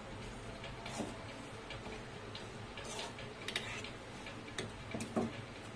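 A spoon stirring a thick tamarind and jaggery mixture in a metal pot, with scattered light clicks and scrapes of the spoon against the pan.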